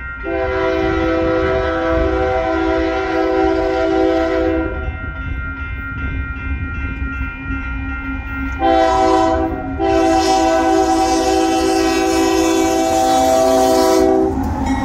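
Union Pacific diesel locomotive's air horn sounding at the crossing as the freight train approaches: a long blast, a short one about nine seconds in, then another long one. A crossing-signal bell rings steadily underneath, and the locomotive's engine and wheel rumble grows loud as it reaches the crossing near the end.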